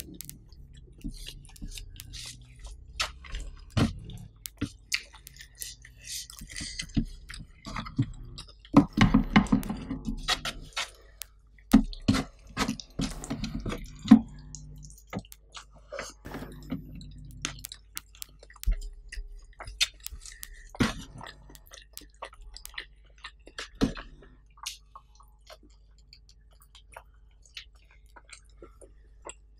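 Close-miked chewing of rice and sambal squid, with wet smacking clicks of the lips and mouth. The chewing comes in louder bouts about nine seconds in and again around twelve to fourteen seconds, then thins to scattered clicks.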